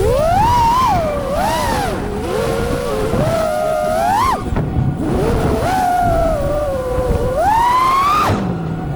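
FPV freestyle quadcopter's brushless motors (Xing 2 2207 1850kv) whining, the pitch rising and falling with the throttle. There is a sharp climb about four seconds in and another about eight seconds in, each ending in a sudden drop as the throttle is chopped.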